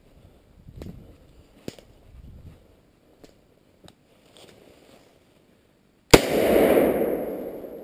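A single hunting gunshot about six seconds in, very loud, with its echo dying away through the woods over a second or two. Before it, faint footsteps and rustling in dry fallen leaves.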